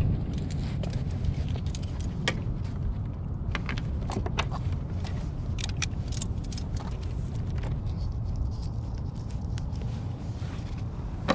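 Small metal fishing tackle (wire leader, snaps and gaff hardware) clicking and clinking as it is handled, in scattered sharp clicks over a steady low rumble.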